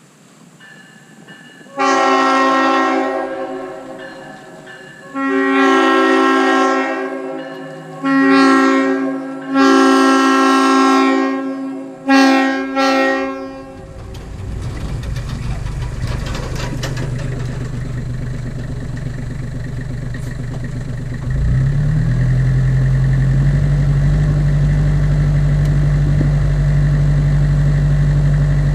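Replica Leslie S5T five-chime locomotive air horn sounding a chord in about five blasts, mostly long, the last short and broken, starting about two seconds in. After the horn stops, an engine runs steadily, growing louder about 21 seconds in.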